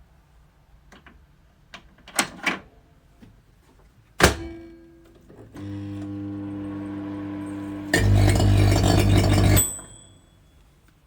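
Microwave oven being worked: a few clicks, a sharp knock like the door shutting, then the oven running with a steady mains hum. About two and a half seconds later a louder rushing noise joins for a second and a half, and the hum stops at the same moment, just before a short high tone.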